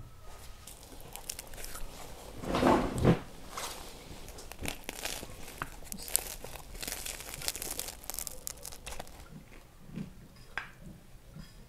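A crusty bread loaf being torn apart by hand, its crust crackling and crunching, with a louder noisy burst about two and a half seconds in and many small crackles after it.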